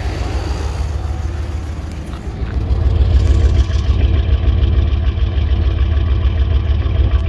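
2000 Dodge Ram van 3500's engine running steadily, with its rough idle now cured. The engine note gets louder about two and a half seconds in. The owner notes the engine has an exhaust leak.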